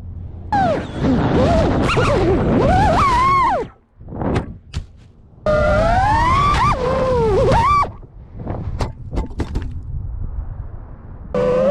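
FPV quadcopter brushless motors whining, the pitch rising and falling with throttle, in two flights that each cut off abruptly in a crash, followed by a run of sharp knocks from impacts; another motor whine starts near the end.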